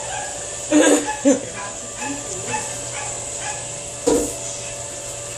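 Brastemp Clean BWC10A washing machine filling with water, a steady hum, with a few short yelps breaking in about a second in, again just after, and about four seconds in.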